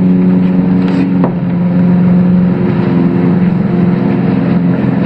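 A steady, low mechanical drone with an even pitch, like a motor running, with a single sharp click about a second in.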